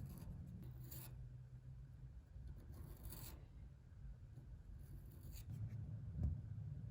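Faint, irregular scraping strokes, a few in all, over a low steady hum.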